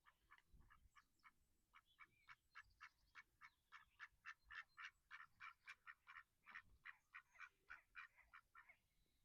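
A faint, rapid run of short repeated calls, about four or five a second, from an animal at the waterside; they grow louder towards the middle and fade near the end.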